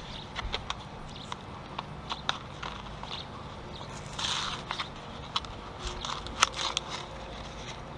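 Hands handling a small plastic automotive bulb and its packaging: scattered light clicks and taps, a brief crinkling rustle about four seconds in, and a sharper click about six and a half seconds in.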